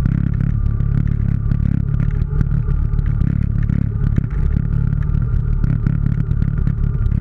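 ATV engine running steadily under load while it climbs a rocky dirt trail, with many small knocks and rattles from the machine rolling over loose stones.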